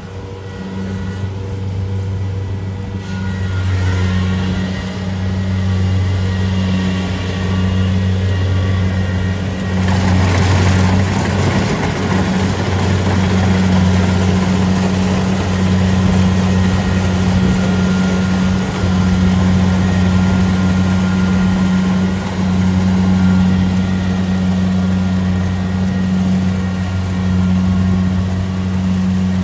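Kubota DC-70 Plus combine harvester running steadily as it crawls through deep mud on its tracks and cuts rice, with a deep, steady engine hum. A louder rushing noise joins the hum about ten seconds in and continues.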